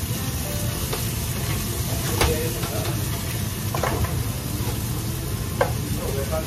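Food sizzling in a wok on a restaurant stove over a steady low roar, with three sharp metallic clanks of a utensil against metal.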